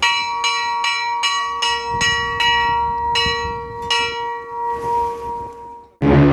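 A tall ship's brass bell struck rapidly on deck, about two or three strikes a second for some four seconds, then left to ring out. Music cuts in abruptly at the very end.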